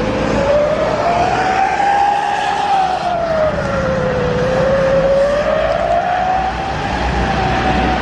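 Siren-style horn wailing, its pitch rising and falling slowly twice, over the low running of a heavy vehicle's engine.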